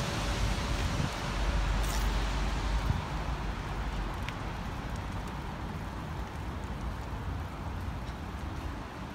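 Steady city street noise of passing traffic, with wind rumbling on the microphone, heaviest between about one and three seconds in.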